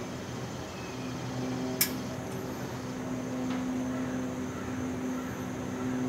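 Robinair/Matco Tools A/C recovery and charging machine humming steadily as it pumps the last of the refrigerant charge into the system, with one sharp click about two seconds in.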